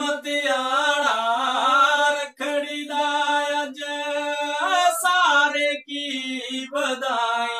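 A man singing a Dogri folk song without accompaniment, drawing out long held notes in phrases with short breaks for breath.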